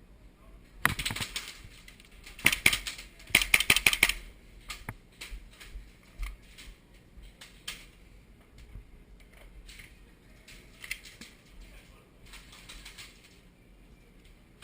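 Airsoft pistols firing: three quick strings of sharp clicking shots in the first four seconds, then scattered single shots.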